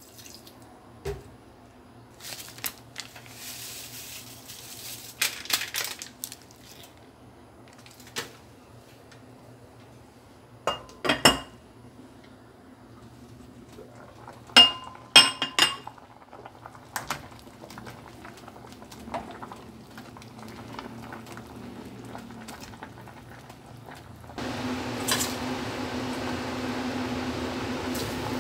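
Stainless steel cooking pot and glass lid clinking and knocking in a scattered run of sharp strikes, the sharpest clusters about 11 seconds and 15 seconds in. About 24 seconds in, a louder steady hiss with a low hum sets in.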